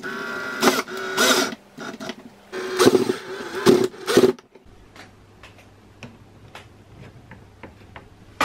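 Cordless drill driving a screw up into the enclosure ceiling to fix a light-mounting bracket, its motor running in several short bursts over the first four seconds or so. After that come a scatter of light clicks and taps.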